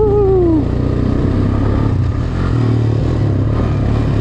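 Honda Recon 250 ATV's single-cylinder engine running steadily at low speed while riding over rocks. Its low drone picks up a little about two and a half seconds in.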